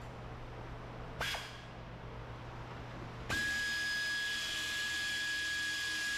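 Pneumatic air ratchet undoing fasteners in the wheel well: a short blip about a second in, then a steady run of about three seconds, a high whine over the hiss of exhausting air.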